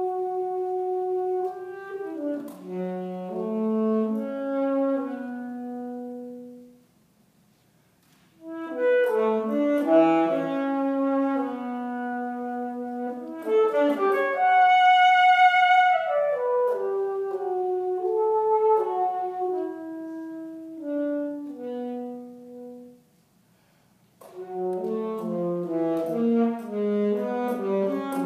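Solo alto saxophone playing unaccompanied: free phrases of quick runs and held notes, with a long high note near the middle. The playing stops for brief pauses about seven and twenty-three seconds in.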